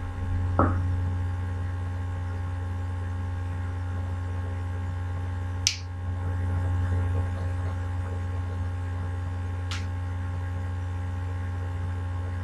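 Steady electrical mains hum on the recording, low and unbroken, with three short clicks: one about half a second in, a sharper, louder one near the middle and one near the end.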